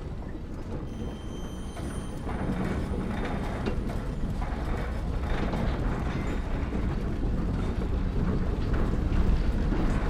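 A low mechanical rumble with irregular rattling and clattering, growing steadily louder.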